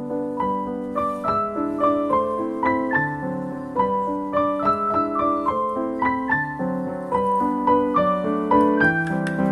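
Background piano music: a light melody of separate notes, two or three a second, over lower held notes.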